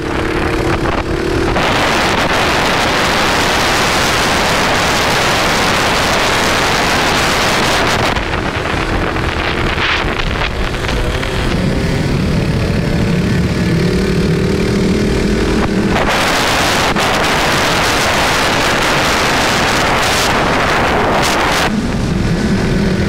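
Small dirt bike engines running on a beach, the engine note rising and falling, with heavy wind buffeting the microphone. The wind rumble covers the engine for long stretches. A lower, steadier engine note comes through most clearly in the middle.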